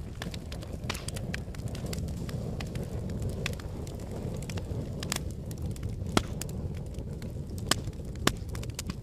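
Fire crackling and popping over a low steady rumble, with a few louder sharp pops in the second half.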